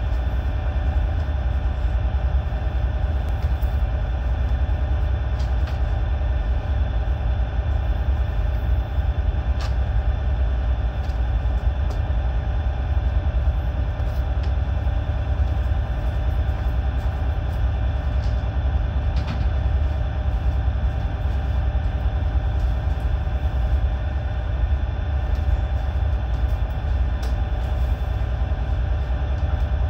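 Steady low rumble and hum of a tanker's onboard machinery running without change, with a few faint ticks.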